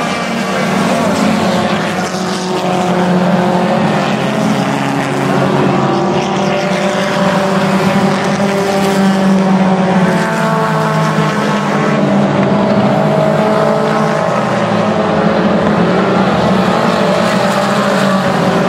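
A pack of dirt-track stock cars racing, several engines running at once. Their overlapping pitches rise and fall as the cars accelerate down the straights and lift for the turns.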